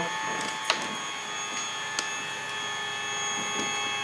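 The stepper motors of a DIY CNC quilting frame whine at a steady pitch as they drive the sewing machine back to its zero point, with two faint clicks.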